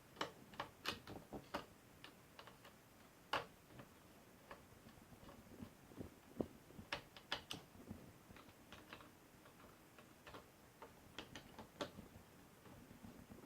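Faint, irregular clicks and ticks of a small screwdriver working the screws that hold a laptop's cooling fan.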